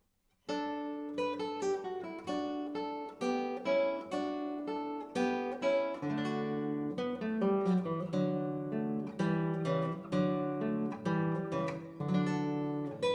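Background music: a solo acoustic guitar playing a plucked melody with chords, starting about half a second in.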